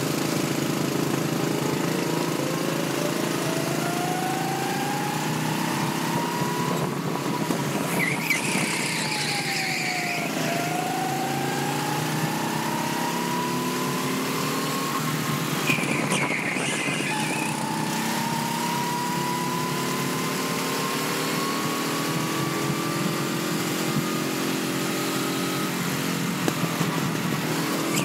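Go-kart engine heard from on board at racing speed, its pitch climbing steadily as it accelerates. About ten seconds in it dips briefly, as for a corner, then climbs again. Two short high-pitched squeals stand out, about eight and sixteen seconds in.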